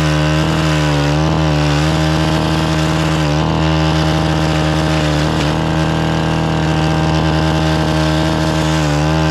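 Gas-powered stick edger running at high throttle, its blade cutting into the soil along a sidewalk edge. The engine pitch dips briefly under load several times as the blade bites into the dirt.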